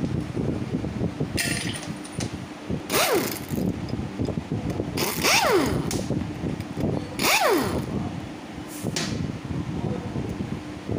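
Three short bursts of a handheld power tool, each dying away in a falling whine, as it undoes the bolts of the rotor on the clutch side of a dismantled Hero Glamour engine. Small metal clinks come between the bursts.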